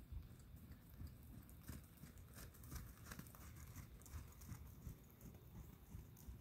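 Near silence: a faint outdoor background with a low rumble and scattered soft clicks and rustles.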